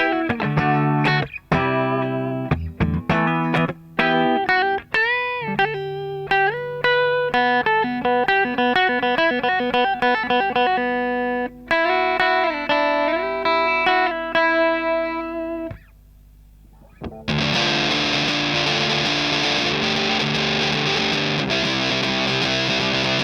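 Electric guitar played through a Tone Bender 3-knob style fuzz pedal (DIYGP Hydra Fuzz), giving a distorted, fuzzy tone. It plays single-note riffs with string bends, falls quiet briefly about two-thirds of the way in, then holds one dense, sustained chord.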